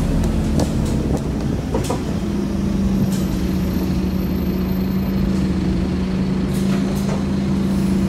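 Interior sound of a Scania OmniCity single-deck bus under way: a low engine and road rumble, joined about two seconds in by a steady drone that holds, with a few short rattles and clicks from the cabin fittings.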